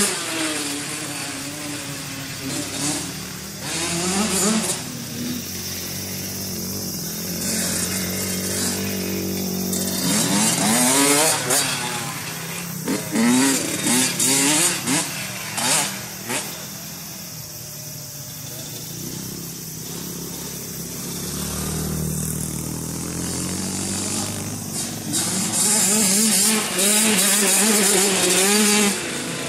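Dirt bike engine revving up and down as the bike rides a dirt track, with repeated rising pitch sweeps as the rider opens the throttle. It is loudest near the start and again near the end as the bike passes close.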